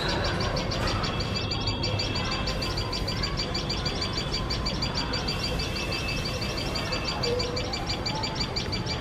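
Common tailorbirds giving shrill alarm calls at a cat close to their nest: a fast, even run of high chirps that goes on without a break.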